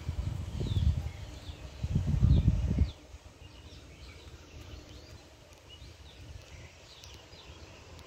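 A low rumbling noise on the microphone for about three seconds, then faint, brief bird chirps in the background.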